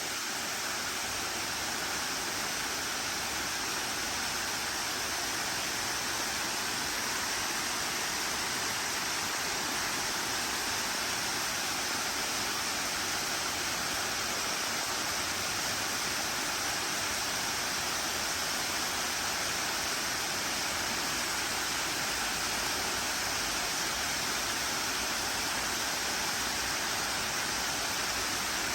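Waterfall rushing steadily, an even hiss of falling water with no change.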